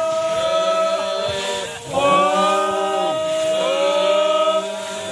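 Several voices chanting together in long held notes. Each phrase begins with an upward slide and is held for a couple of seconds, with a short break just under two seconds in.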